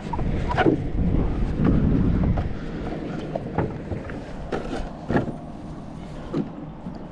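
Wind buffeting the microphone for the first couple of seconds, then scattered light knocks and taps as long freediving fins are handled and laid down on an inflatable paddleboard.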